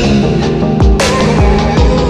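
Electronic dance music with a heavy bass beat and a cymbal crash about halfway through.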